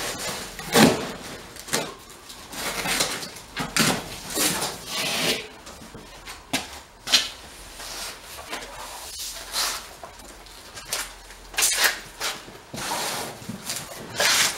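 Unpacking noise: plastic wrap rustling and cardboard packing pieces knocking and scraping as they are pulled from a grill box, in a string of irregular bumps and rustles with a sharp knock about a second in.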